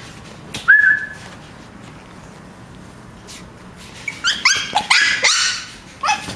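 Pomeranian puppy giving one drawn-out high whine about a second in, then a quick run of short, high-pitched yips near the end.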